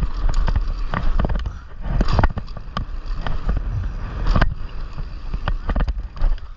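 Loose GoPro mount rattling on a mountain bike's handlebar as the bike rolls down a dirt trail: irregular clattering knocks over a constant low rumble from the ride.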